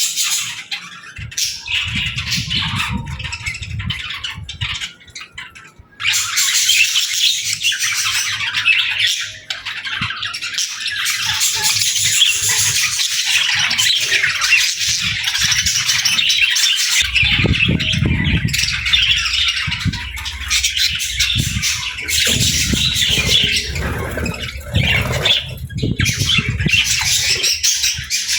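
Budgerigars chattering: a dense run of chirps and squawks that turns louder and continuous about six seconds in, with spells of low rumbling noise underneath.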